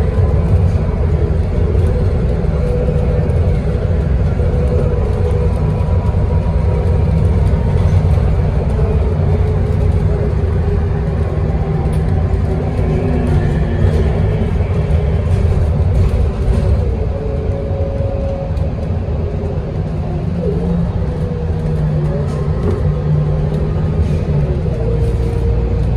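Inside a city transit bus travelling at freeway speed: a steady low drone of engine and road rumble.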